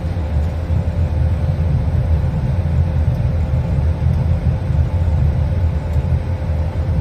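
Steady low rumble in the cockpit of an Airbus A220 taxiing with its engines running, with a faint steady tone through it.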